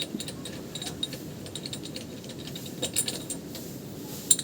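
Small metal tools and engine parts clicking and clinking as they are handled and unscrewed, in a run of light irregular ticks with a sharper clink near the end.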